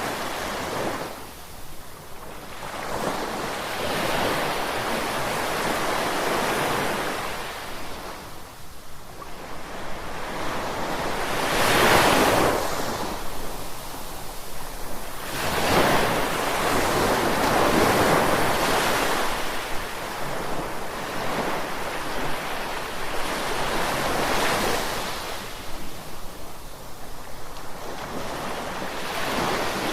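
Ocean surf: waves breaking and washing in, swelling and easing every few seconds, with the biggest surges about 12 and 16 seconds in.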